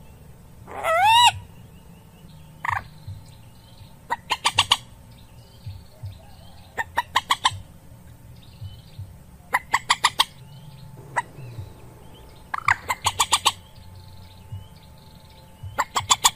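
Common moorhen calling: one long rising-and-falling croak about a second in, then a series of rapid bursts of four to six short, sharp clucking notes every two to three seconds.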